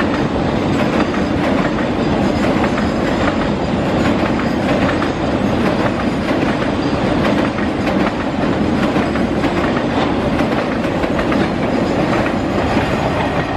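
BCACBM car-carrier freight wagons rolling past, a steady loud rumble of steel wheels on rail with repeated clacks over the rail joints.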